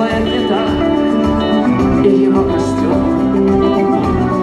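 Music: a song with guitar accompaniment, playing steadily.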